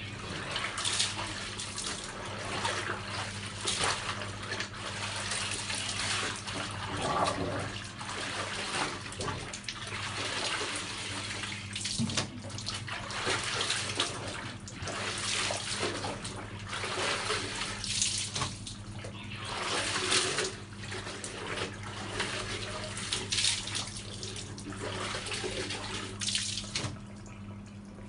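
Clothes being worked by hand in a plastic bucket of water, with irregular sloshing and squelching every second or two. A steady low hum runs underneath.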